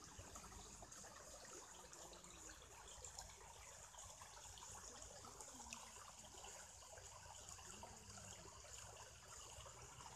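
Faint trickling, splashing water, barely above near silence.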